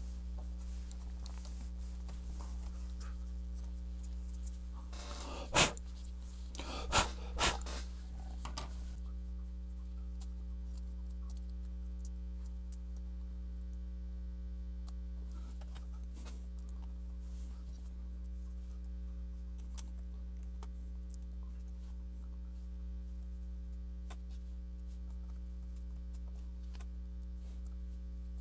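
Steady mains hum, with three small sharp clicks about five to seven and a half seconds in as the opened laptop's parts are handled and fitted back together, and a few faint ticks later.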